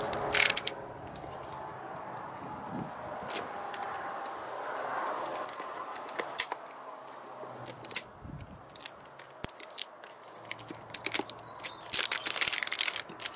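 Small knife blade picking and scraping at the plastic sealing tape around the rim of a metal tin, with scattered clicks, then the clear plastic strip crackling as it is peeled off near the end.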